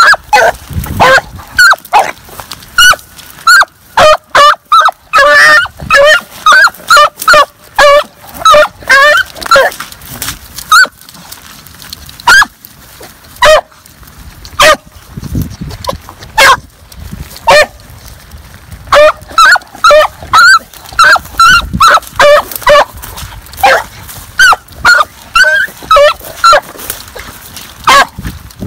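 A rabbit hound barking over and over as it runs a rabbit, short pitched calls coming about one or two a second with a few brief pauses: the dog is on the rabbit's trail.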